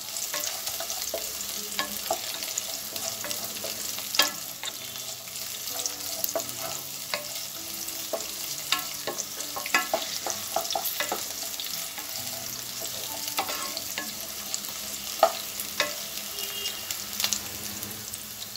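Diced vegetables sizzling in hot oil in a non-stick kadai, stirred with a wooden spatula that scrapes and knocks against the pan at irregular moments.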